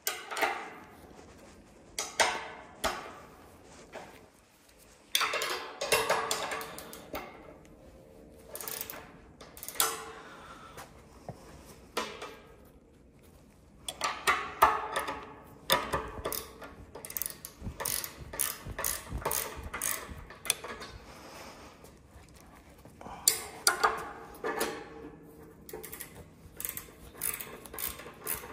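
Ratcheting wrenches clicking in bursts of rapid clicks as the bolts holding a cast-iron bench vise to a steel table top are run down and tightened, with a few louder metal knocks between the bursts.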